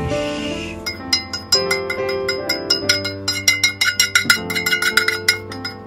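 Background music of quick, sharply struck notes in a steady rhythm. In the first second there is a short hiss as the stir fry slides out of the frying pan into the bowl.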